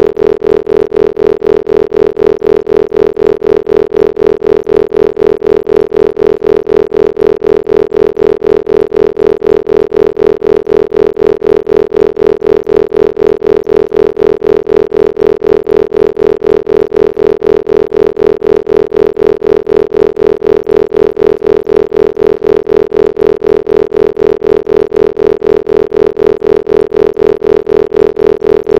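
Synthesized isochronic tones mixed with binaural-beat tones for brainwave entrainment: a steady hum strongest in the middle-low range, with softer tones beneath and above, pulsing on and off evenly several times a second.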